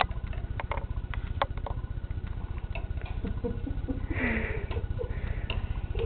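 Irregular light clicks and taps of a metal spoon knocking against a plastic dishwasher cutlery basket and teeth as a baby handles and chews it. Soft vocal sounds come in about three to five seconds in.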